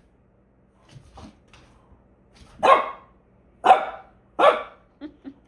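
Dog barking three times, about a second apart, after a couple of soft low huffs, with two short quiet woofs near the end.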